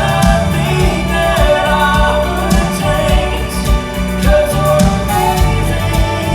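A female singer performing a pop song with live band backing: held, sliding sung notes over bass and a steady drum beat.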